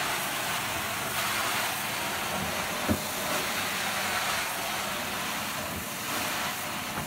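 A 2-inch stainless steel carpet-cleaning extraction wand drawing hot water and air out of the carpet: a steady rushing hiss of suction, with a single knock about three seconds in.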